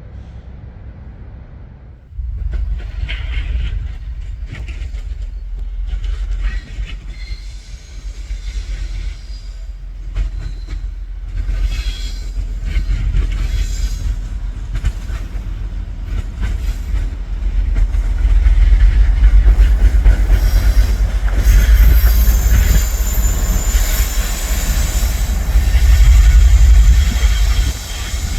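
A train passing close by, loud, with a heavy low rumble that starts suddenly about two seconds in and wheels clattering over the rail joints. High-pitched wheel squeal builds in the second half.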